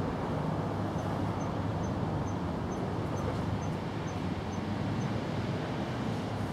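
Steady low rumble of outdoor background noise. Through the middle, a faint high tick repeats about twice a second.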